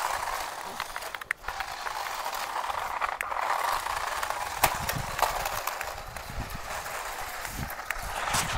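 Remote-control toy cars running, a steady whir from their small electric motors with scattered clicks and knocks throughout, one sharper knock about halfway through.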